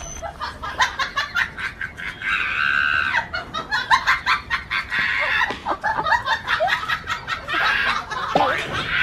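Chickens clucking and squawking in repeated bursts, over many short knocks and scuffles.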